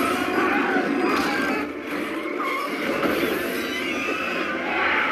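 Monster-movie battle sound: a giant kaiju's screeching roar over a dense din of fight noise.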